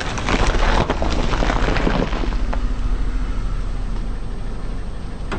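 A car's tyre rolling over and crushing crunchy objects: a dense burst of crackling and snapping in the first two seconds or so, over the steady low rumble of the car's engine.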